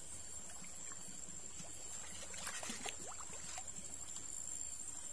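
Shallow river water trickling and lapping among rocks, with a few faint small splashes, under a thin steady high-pitched whine.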